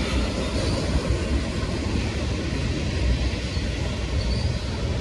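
Freight train cars rolling past on the track, a steady low rumble.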